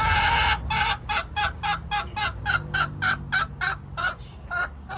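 A hen cackling loudly: one long squawk, then a rapid string of short, evenly repeated squawks, about three a second.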